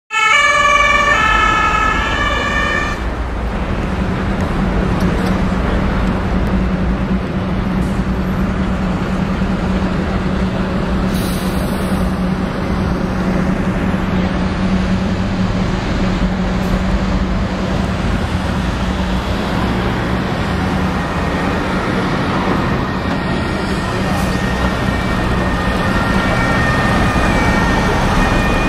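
An emergency-vehicle siren alternating between pitches for the first three seconds, then steady street traffic noise with a low, even engine hum.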